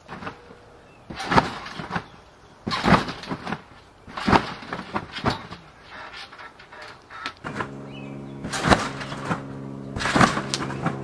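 Trampoline bouncing: a thump of the mat and springs on each landing, about every second and a half. From about halfway through, a steady low hum joins in.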